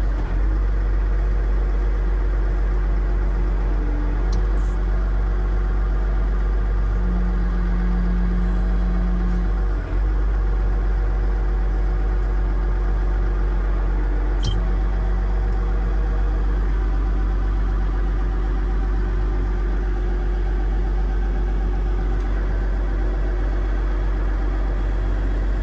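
First-generation Case IH Steiger 9380 Quad Trac's Cummins N14 diesel engine idling steadily, a deep even hum.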